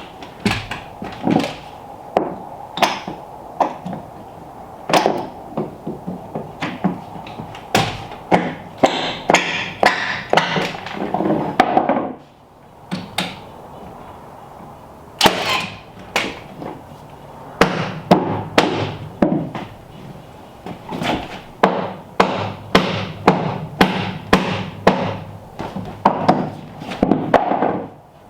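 Hammer blows on timber: irregular sharp knocks, one to three a second, in two runs with a pause of a few seconds near the middle.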